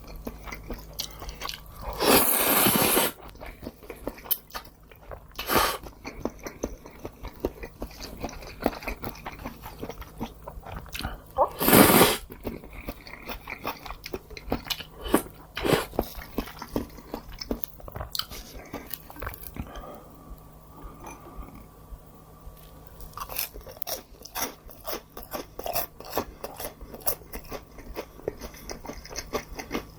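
Close-miked eating: a person chewing and biting food, with many small crunches and mouth clicks. Two louder, noisier bursts of about a second each come about two seconds in and again about twelve seconds in.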